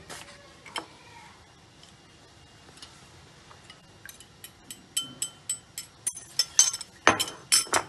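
A utensil clinking against a bowl: a couple of single clinks, then a run of quick clinks about three to four a second, loudest near the end, as the last of the beaten egg mixture is scraped out.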